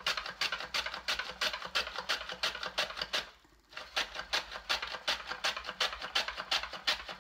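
Fennel bulb being sliced on a hand-held mandoline: quick crisp strokes across the blade, about four or five a second, with a short break a little past three seconds in.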